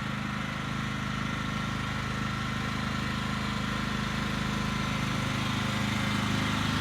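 Riding lawn mower engine running steadily, growing slightly louder toward the end.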